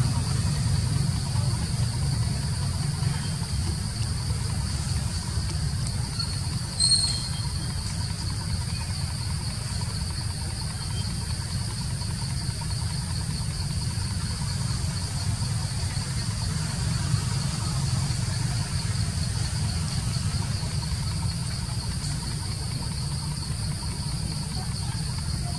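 Forest ambience: a steady, high-pitched insect drone over a continuous low rumble, with one short chirp about seven seconds in.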